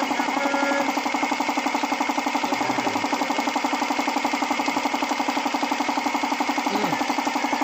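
An engine idling steadily with a regular pulsing beat, about six to seven a second.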